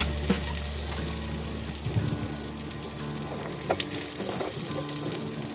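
Mustard seeds, green chilies and coriander leaves sizzling in hot oil in a Pigeon electric multicooker kettle as a tadka, with a few sharp clicks.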